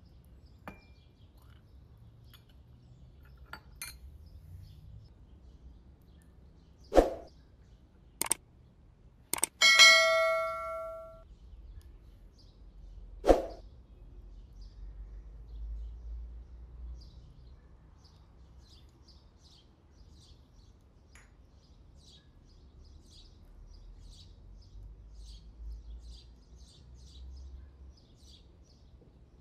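Four sharp clinks of tea ware being handled: a silver sugar bowl, a metal serving tray and glass tea cups on saucers. The third clink rings on with a metallic tone for about a second. Later, birds chirp faintly.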